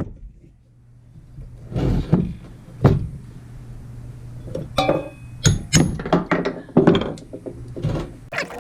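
Metal tools knocking and clinking against the metal parts of a rusted arbor press as a stuck part is worked on: two separate thunks, then a quick run of sharp clanks, some with a brief metallic ring.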